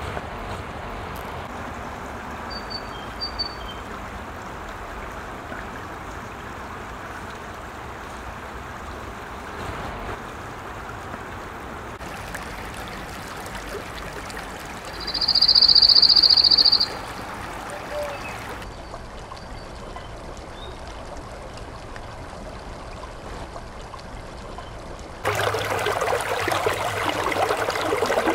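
Shallow creek water running and trickling over stones, getting much louder and closer after a cut near the end. In the middle a loud, steady high-pitched note sounds for about two seconds.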